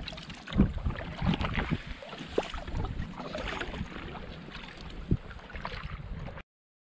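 Water slapping and splashing irregularly against a boat's hull, with wind buffeting the microphone in low rumbles. The sound cuts off abruptly near the end.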